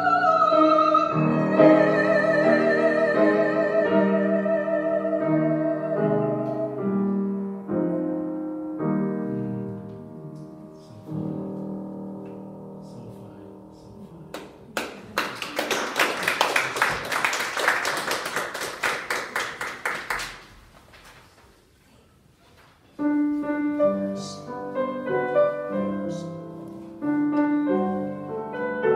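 A soprano holds a final sung note with wide vibrato over piano, the piano plays on alone and closes the song, then the audience applauds for about five seconds. After a short pause the piano starts the introduction to the next song.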